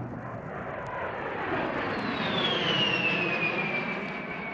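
A-10 Thunderbolt II's twin TF34 turbofan engines flying past. The jet noise swells to a peak about three seconds in and then eases. A high turbine whine drops steadily in pitch through the second half as the aircraft goes by.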